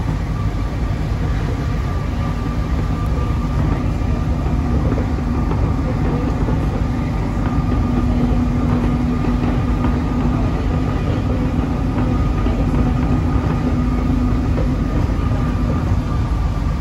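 Inside an Alstom NS-16 rubber-tyred metro car running between stations: a loud steady rumble with a steady hum at one pitch, strongest in the middle, and a fainter higher tone.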